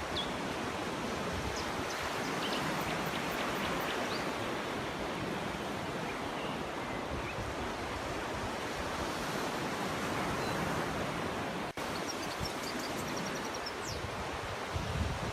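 Surf washing onto a beach: a steady hiss of waves that swells and eases slowly. Faint short bird chirps come through now and then, with a quick run of them near the end.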